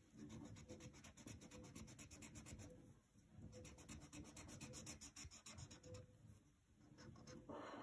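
Felt-tip marker rubbed on its side back and forth over paper: faint, quick scratchy strokes, several a second, with a short pause about three seconds in and another near the end.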